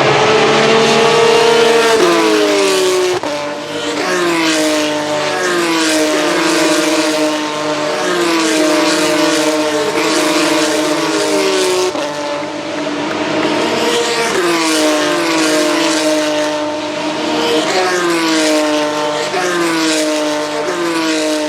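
Formula 3 racing cars' naturally aspirated V6 engines braking for a corner. Each car drops quickly through three or four gears, and its revs sag and then jump back up with every downshift. The run of downshifts repeats about five times as one car after another brakes.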